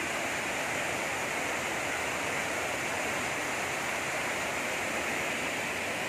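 Wide cascade waterfall, white water pouring over rock ledges in a steady, unbroken rush.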